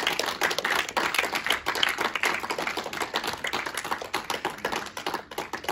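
A small group applauding, many quick overlapping hand claps that thin out near the end.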